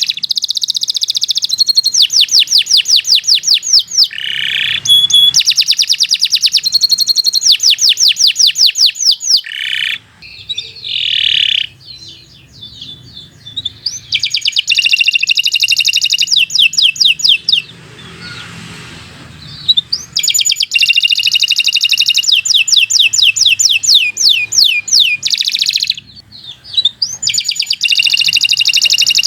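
Domestic canary singing long phrases of fast, high trills of evenly repeated notes. The song breaks off twice for a few seconds, once about ten seconds in and again near eighteen seconds, with only scattered short notes in between.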